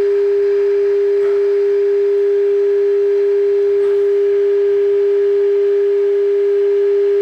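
Steady, unwavering test tone from a Zenith AA5 radio's loudspeaker. It is the audio-modulated signal of a signal generator that the set is tuned to during alignment, and its loudness is the guide for peaking the adjustments.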